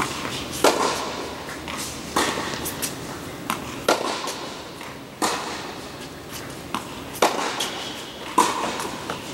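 A tennis ball being struck by racquets and bouncing on a hard court during a rally: six sharp pops, one every one to two seconds, with fainter taps between them. Each pop rings on in the echo of a large indoor hall.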